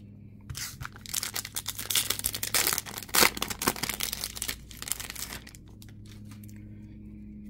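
Wrapper of a Topps Chrome baseball card pack being torn open and crinkled by hand, a dense crackle for about five seconds that stops near the end.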